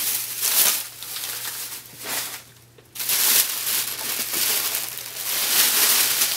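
Thin plastic shopping bag crinkling and rustling as hands rummage in it and pull a packaged stack out, with a short lull about two and a half seconds in.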